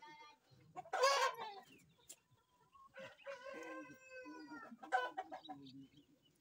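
Chickens calling: a short loud squawk about a second in, then a rooster crowing, one long falling crow from about three seconds in, with another sharp call just after it.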